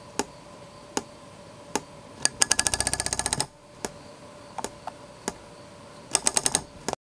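A rubber-band model airplane's wire propeller shaft clicking as its hook bumps against the white plastic nose bearing while the propeller turns. There are single clicks, then a fast run of about a second, more scattered clicks, and a second short fast run near the end. The clicking is a sign that the shaft has been bent and needs bending back.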